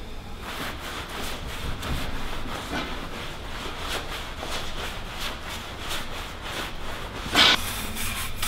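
Wet cloth scrubbing a bare concrete floor by hand, in repeated uneven rubbing strokes. A short, louder scrape comes near the end.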